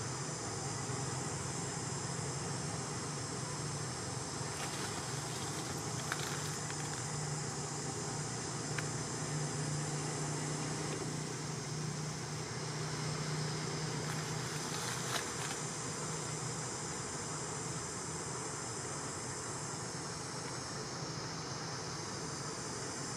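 Steady high-pitched buzzing of an insect chorus, with a low hum underneath that swells in the middle and a few faint clicks.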